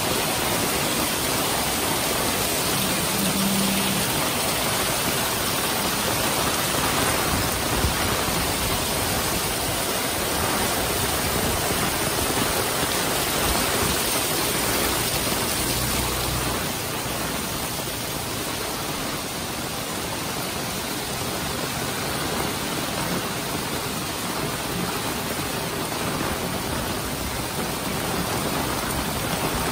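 Heavy downpour: a dense, steady hiss of rain, a little quieter from just past halfway.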